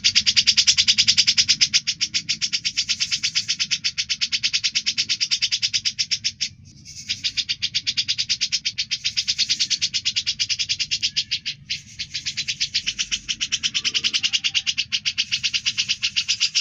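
Cucak jenggot (grey-cheeked bulbul) singing a loud, fast, rattling trill of evenly repeated high notes. It pauses briefly twice.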